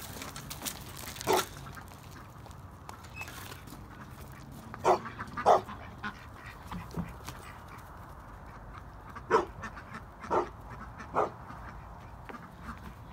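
A dog barking, about six short single barks spaced irregularly, with pauses of a few seconds between some of them.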